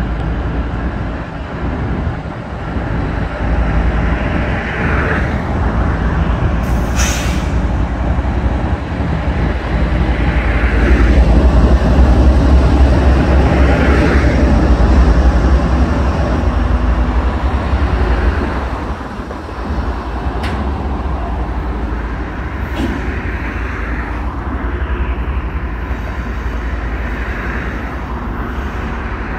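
CSX intermodal freight train rolling past, a steady low rumble of the train on the rails, loudest around the middle. A sharp clank comes about seven seconds in.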